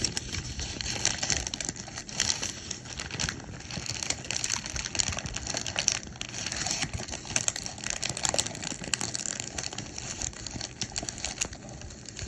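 Paper bag being crumpled and crinkled: a continuous dense crackling with irregular louder crinkles.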